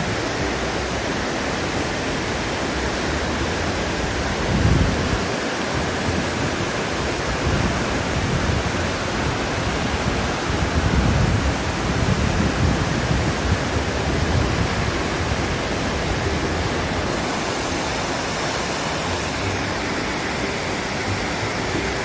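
Dynjandi waterfall and the cascades below it: a steady, loud rush of falling and tumbling water, with low swells now and then from wind buffeting the microphone.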